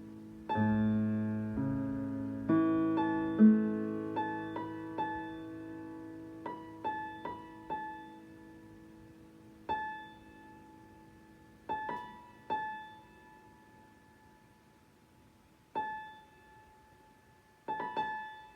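Digital piano played freely: low chords held over the first few seconds, then single high notes struck sparsely, one every few seconds, each left to ring out, with a quick pair near the end.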